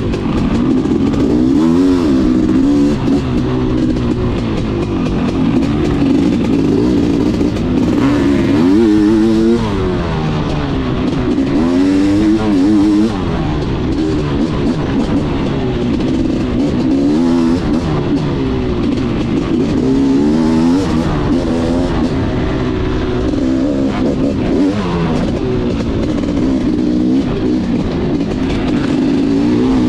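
BRC 500 dirt bike engine revving under way on a trail, its pitch climbing and dropping every few seconds as the throttle is opened and shut.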